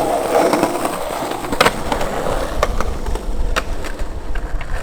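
Skateboard wheels rolling steadily, broken by several sharp clacks of the board, the loudest about a second and a half in.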